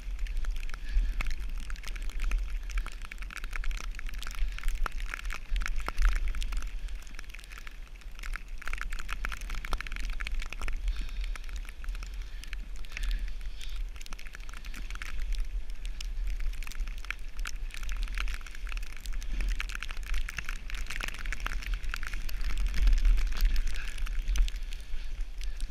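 Snowboard sliding and scraping over snow on a descent, a steady crackly hiss with many small ticks, with wind rumbling on the microphone underneath.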